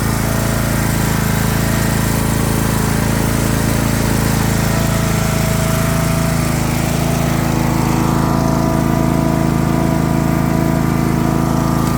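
Craftsman LT3000 riding lawn mower's engine running steadily, without misfiring.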